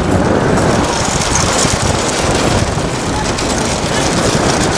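Vehicle engine running steadily under a loud, even rush of road and wind noise.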